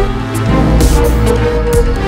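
Loud background music: held notes over drum hits.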